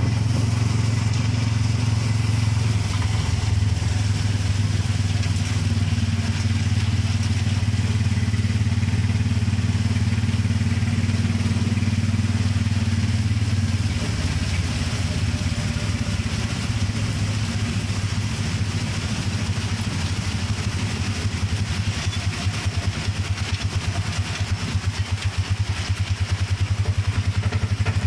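Small motorcycle engine running steadily under way, heard from on board, over a steady hiss of rain and wet-road noise. Over the last several seconds the engine sound turns uneven and pulsing.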